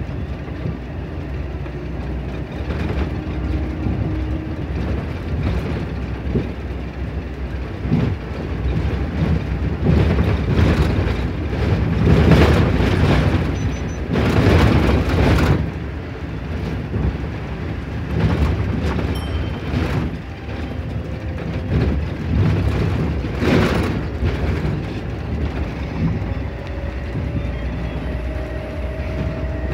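Interior of a Scania Lahti 402 city bus on the move: continuous engine and road noise with rattles, growing louder in the middle. About two thirds of the way through, the stop-request bell strikes once, and a slowly rising whine comes in near the end.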